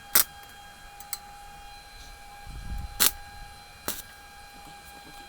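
Sharp metallic clicks and knocks of thin stainless-steel sheet pieces being handled and set in place for tack welding. There are four clicks: two loud ones, about a fifth of a second and three seconds in, and two fainter ones. A steady thin whine runs underneath.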